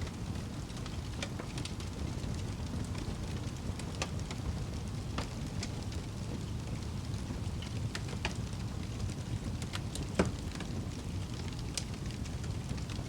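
Fire crackling in a fireplace: a steady low rumble with scattered sharp crackles and pops, one louder pop about ten seconds in.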